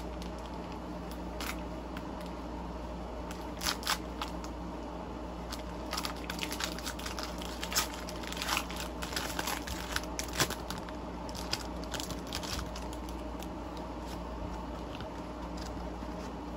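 Foil wrapper of a Pokémon booster pack being handled and torn open by hand. It gives scattered crinkles and crackles, busiest in the middle, over a faint steady room hum.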